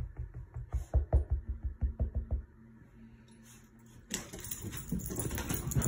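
A dog's rapid soft thumping, about six beats a second, that stops about two and a half seconds in. From about four seconds in there is a rustling noise.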